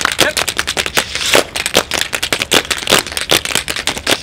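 Group tap dancing on concrete in work boots fitted with metal taps: a fast, dense run of sharp tap strikes in an uneven rhythm.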